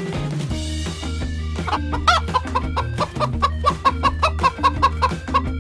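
Chicken clucking: a squawk about two seconds in, then a rapid run of short clucks, about five a second, over background music.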